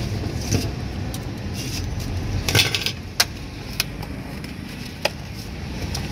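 Steady street-traffic rumble with several sharp clicks and light knocks spread through it, from a metal-rimmed glass steamer lid and a foam takeaway box being handled at a street food cart.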